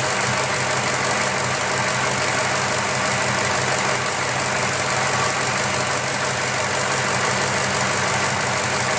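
Ford Falcon BA XR8's 5.4-litre V8 idling steadily, heard up close from the top of the intake manifold, with the fast, even knock noise the owner is chasing.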